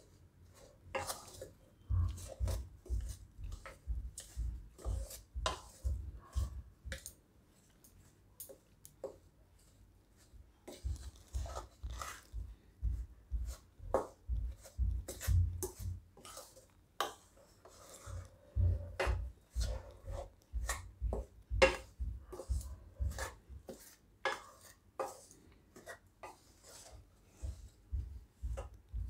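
Slotted metal spatula scraping and knocking against a non-stick kadai while dry rice flour and powdered sugar are stirred together, in irregular strokes with a short lull about a third of the way in.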